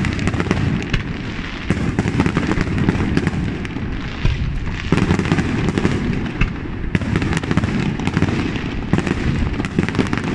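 Aerial firework shells bursting in quick succession: a continuous barrage of booms with dense crackling between them.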